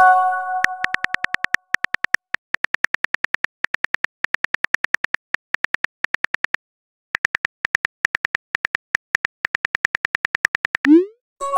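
Simulated phone-keyboard typing clicks from a chat-story app, tapping out a message at about six or seven clicks a second with a brief pause a little after the middle. A chime of several tones rings and fades at the start, and near the end a quick rising swoop sounds as the message is sent.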